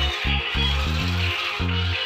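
Background music: a song track driven by short, repeated bass notes.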